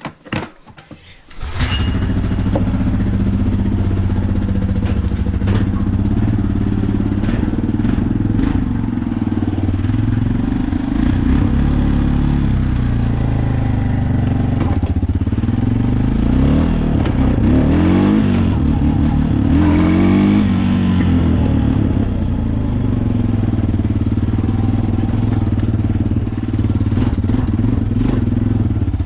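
Four-wheeler (ATV) engine running while it is ridden, coming in suddenly about a second and a half in. Its pitch rises and falls with the throttle several times in the middle.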